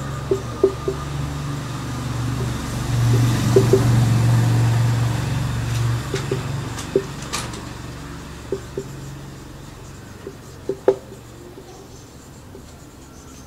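Marker writing on a whiteboard, with short taps and squeaks, over a low rumble that swells a few seconds in and then slowly fades away.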